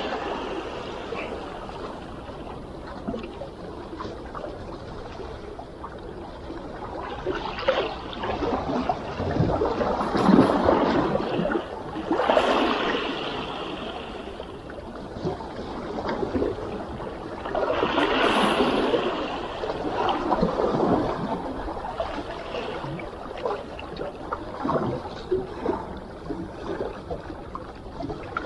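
Small sea waves washing and trickling over shore rocks, swelling louder every few seconds.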